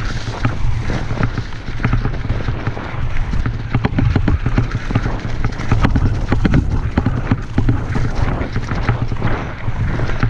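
Mountain bike running downhill over rough singletrail: tyres rumbling on the ground, with a steady stream of knocks and rattles from the bike over bumps.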